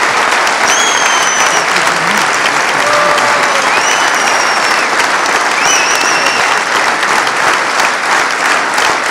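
A large audience clapping in a long, sustained ovation, dense and steady, with a few high held calls from the crowd rising above the clapping now and then.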